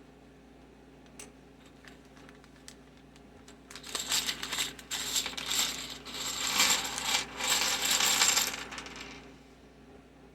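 Loose plastic Commodore 64 keycaps clattering against each other: a few light clicks, then a dense, high-pitched rattle of many small hard clicks lasting about five seconds.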